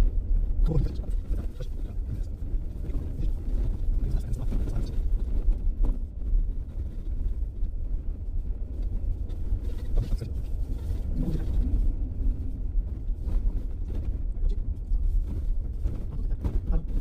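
Off-road vehicle driving, with a steady low engine and road rumble and a few short knocks and jolts scattered through it.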